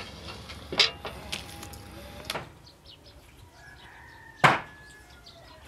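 A few sharp knocks, the loudest about four and a half seconds in, over faint, drawn-out calls of domestic fowl.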